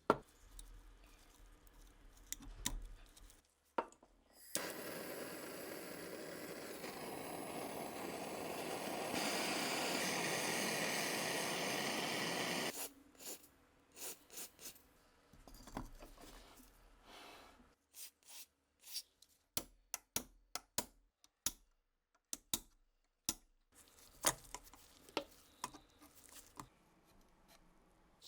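Small metal parts and tools handled at a workbench: sharp clicks and taps, with a steady hiss in the middle that gets louder partway through and cuts off suddenly.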